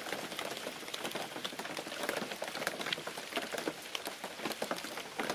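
Rain pattering on a hunting blind: a dense, irregular run of close drop ticks at a steady level.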